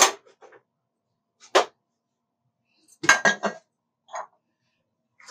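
Glass jars and their lids clinking and knocking as they are handled and set down: a few separate clinks, with a quick cluster of several about three seconds in.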